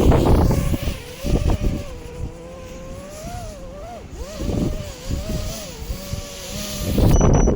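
5-inch FPV quadcopter's four brushless motors (T-Motor Velox 2207, 2550KV) and props whining, the pitch wavering up and down as the throttle changes, under heavy wind rush on the drone-mounted camera. The wind rush is loudest at the start and again near the end.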